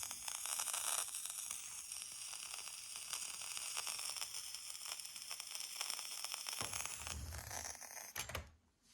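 Aiwa AD-6900 cassette deck putting out crackling static: a steady high hiss full of fast crackles, like frying, which the owner presents as a static noise fault. A couple of low thumps come near the end, and the static cuts off suddenly just before the end.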